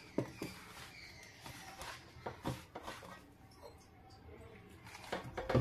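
A hand rubbing and pressing crumbly flour-and-oil mix in a metal mixing bowl, with a few scattered light knocks and scrapes against the bowl.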